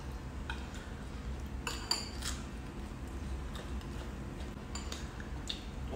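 Table eating sounds: scattered light clicks and clinks of chopsticks and utensils against porcelain bowls and plates, a few per second at most, over a low steady hum.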